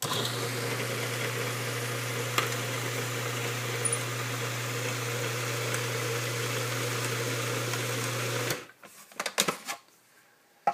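Food processor motor running with a steady hum, mixing flour, water and a little oil into pasta dough. It switches off about eight and a half seconds in, and a few short knocks follow.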